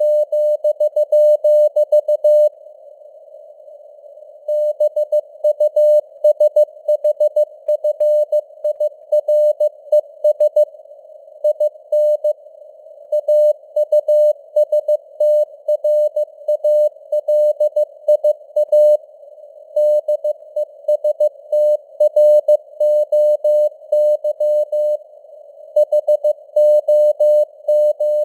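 Morse code (CW) sent at 15 words per minute: a single steady-pitched beep keyed on and off in dots and dashes, over a narrow band of simulated radio hiss that carries on between characters. A longer pause in the keying comes about two and a half seconds in, before the sending picks up again.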